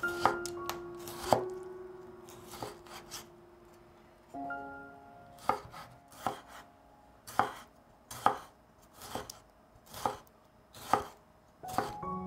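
Kitchen knife chopping on a cutting board in single, separate strokes, roughly one a second. Soft background music notes sound under it.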